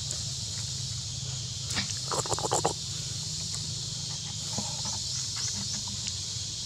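Macaques moving in dry leaf litter: a short burst of rustling and crackling about two seconds in, over a steady high-pitched background hiss.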